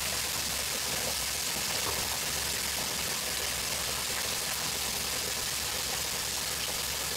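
Pork chops frying in hot oil in an electric deep fryer: a steady, even sizzle.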